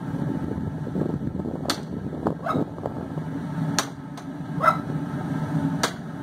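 About six sharp, irregularly spaced hammer blows on a chisel splitting a steel bar in a vise, some with a brief metallic ring, over the forge's steady low running.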